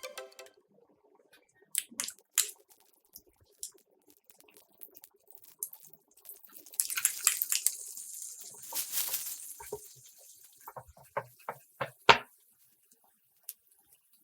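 Food-preparation handling sounds: a few scattered clicks and taps, a hiss lasting about three seconds near the middle, then a run of about eight knocks, the last one the loudest.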